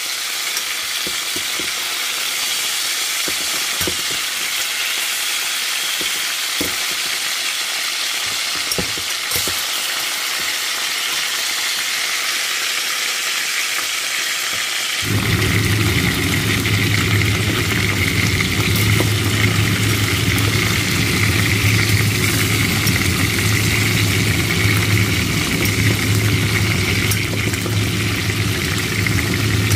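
Chicken pieces sizzling as they brown in oil in a stainless steel pot, with scattered clicks of a metal slotted turner against the pot. About halfway through, a steady low hum starts up and runs on under the sizzle.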